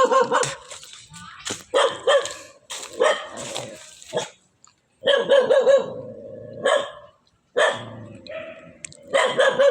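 A dog barking repeatedly in short separate bursts, with brief pauses between them.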